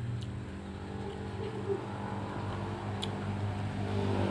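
An engine running steadily with a low hum, growing a little louder near the end, with a few faint clicks.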